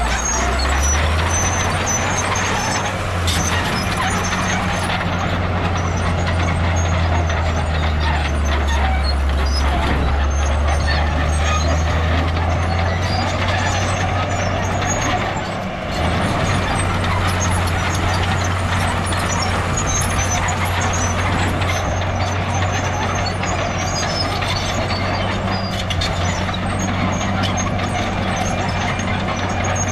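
Heavy diesel earthmoving machinery running steadily under load, its low engine note shifting pitch a couple of times and dropping briefly about half way through, with scattered clicks and clatter over it.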